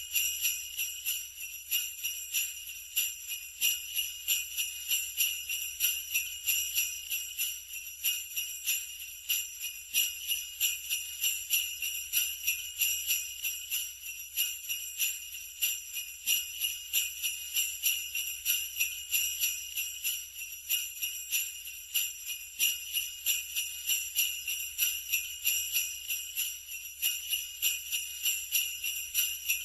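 Sleigh bells jingling continuously in a steady, even rhythm.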